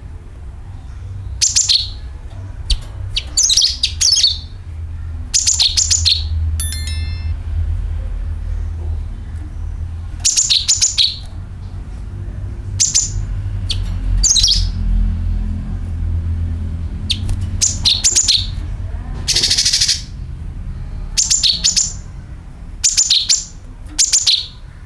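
Cucak kinoi calling in repeated short bursts of rapid, sharp chirps, with a brief harsh rasping call about two thirds of the way through. A steady low hum runs underneath.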